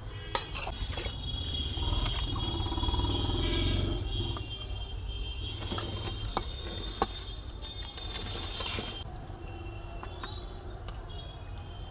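Steel ladle clinking and scraping against stainless-steel plates and a kadhai as rice and chicken curry are served, with a few sharp clinks over a low steady background rumble.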